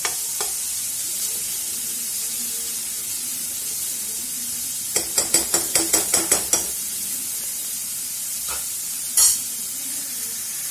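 Chopped onions sizzling in hot mustard oil in a kadhai as they fry toward golden brown, with a metal ladle stirring and scraping the pan. About halfway through comes a quick run of ladle clicks against the pan, and a louder knock near the end.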